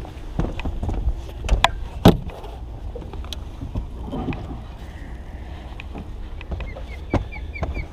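Knocks and clunks of gear being handled and footsteps on the deck of a fishing boat, the loudest about two seconds in, over a steady low rumble of wind and water. Near the end comes a short run of faint, evenly spaced high ticks.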